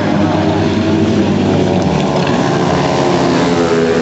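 Engines of a pack of small flat-track motorcycles racing on a dirt oval: many engine notes overlapping and shifting in pitch as the riders work the throttles, loud and steady.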